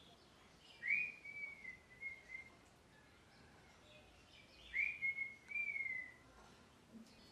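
Ringneck parrot giving two whistled calls about four seconds apart, each a quick upward slur that settles into a held note.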